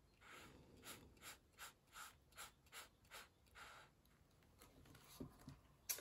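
Paintbrush stroking on watercolour paper: about nine soft, evenly spaced scratchy strokes, roughly two or three a second, stopping a little past halfway. A few soft knocks and a click follow near the end.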